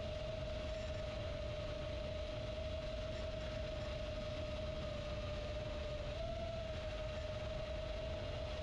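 FPV quadcopter on 4-inch props flying at a distance, its motors making a steady single-pitched whine that drifts a little and rises briefly about six seconds in, over a low rumble.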